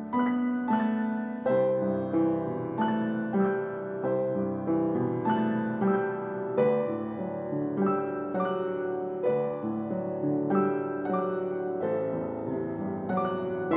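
Upright piano played solo, with notes and chords struck in a steady, flowing rhythm, mostly in the middle register.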